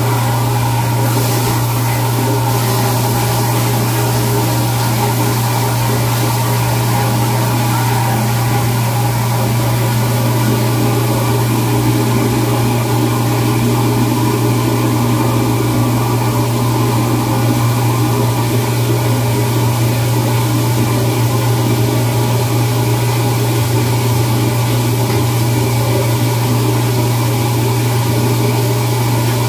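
Loud, steady machinery drone with a strong constant low hum, unchanging throughout.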